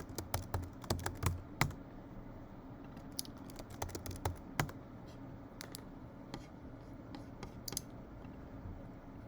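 Typing on a computer keyboard: quick runs of keystrokes in the first couple of seconds and again from about three to five seconds in, then only a few scattered taps.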